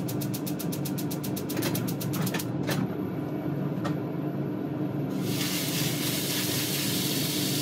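Minced meat in a hot frying pan starts sizzling about five seconds in and keeps up a steady sizzle as it is stirred with a wooden spatula. Before that, a steady low hum carries rapid ticking for the first two or three seconds.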